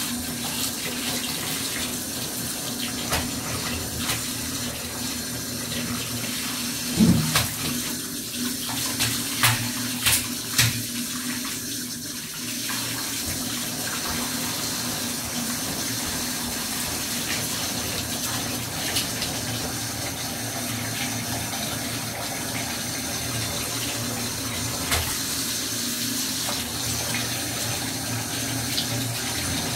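Water running steadily from a bath tap into a bathtub, a constant splashing hiss. A few sharper knocks and splashes come between about seven and eleven seconds in.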